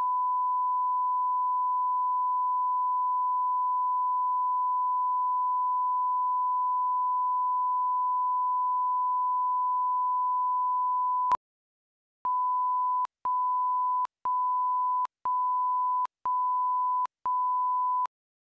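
Broadcast line-up test tone played over colour bars: one steady pure beep that cuts off about eleven seconds in. After a short gap the same pitch returns as six shorter countdown-leader beeps, about one a second.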